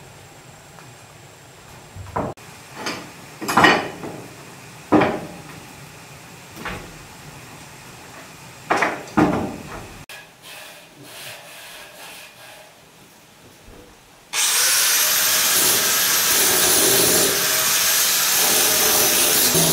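Scattered knocks and scrapes of materials being handled, then about two-thirds of the way in a handheld power tool starts up suddenly and runs loud and steady.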